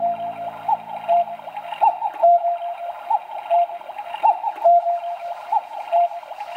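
Cuckoo clock sounding its cuckoo call over and over, a higher note falling to a held lower one about once a second, with the bird out of its door. The calls cut off suddenly at the end.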